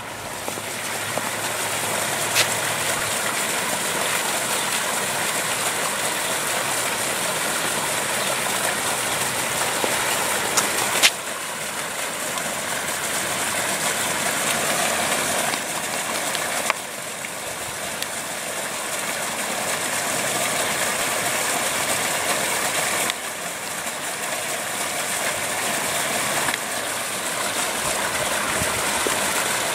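Water splashing steadily down a small stone garden waterfall fountain, a constant rushing hiss whose level steps up or down suddenly a few times.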